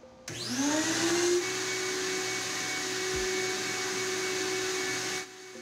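CNC router's vacuum hold-down motor switched on: it spins up with a rising whine over the first second, then runs steadily to hold a sheet of MDF down on the table. It cuts off suddenly near the end.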